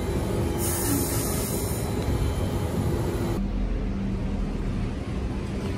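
Passenger train running on the tracks: a steady rumble and hum, with a short high hiss about a second in and an abrupt change in the sound a little past halfway.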